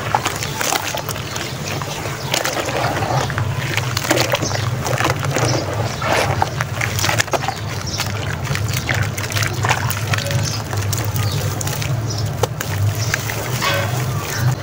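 Wet sand-cement clumps squeezed and crumbled by hand in a tub of foamy water: sloshing and splashing with many small crackles and pops. Near the end, handfuls of wet sand pour back into the water.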